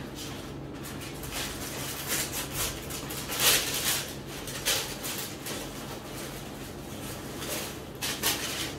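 Tissue paper rustling and a cardboard gift box being handled as a garment is unwrapped, in several separate rustles, the loudest about three and a half seconds in.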